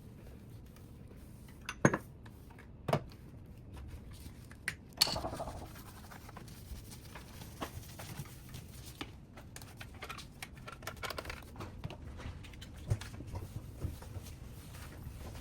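Household handling sounds in a small room: three sharp knocks or clatters in the first five seconds, the last one ringing briefly, then light scraping and scattered small clicks.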